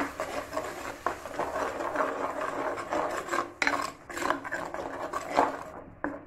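Flat metal spatula scraping and stirring thick ground-coconut paste against the bottom of an earthen clay pot: an irregular rasping, with a few sharper clicks of the spatula on the pot.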